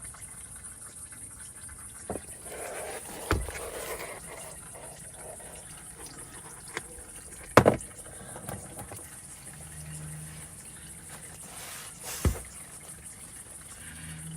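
Engine oil running in a steady stream, broken by four sharp knocks or clanks; the loudest comes a little past halfway.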